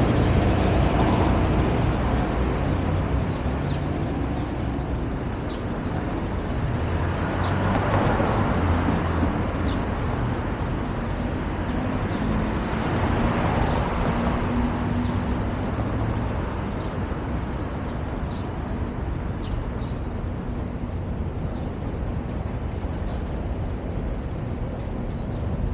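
Outdoor city traffic noise, with vehicles swelling past about 8 and 13 seconds in, and small birds chirping briefly and often over it.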